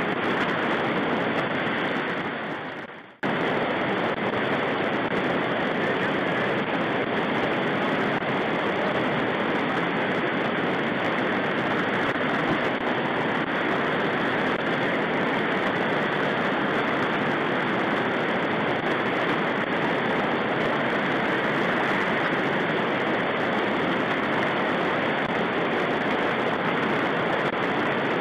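Shallow river rapids rushing over rocks, a steady, even roar of fast water close to the microphone. It fades out briefly about three seconds in, then cuts back in abruptly.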